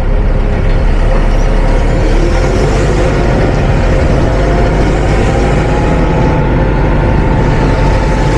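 Forklift engine running and gradually revving up over a few seconds, then holding steady, under heavy wind noise buffeting the microphone.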